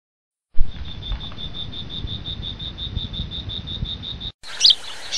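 A steady, rapid insect trill like a cricket's, about eight pulses a second, over a low rumble, starting about half a second in. Near the end it cuts off and short falling bird-like chirps begin.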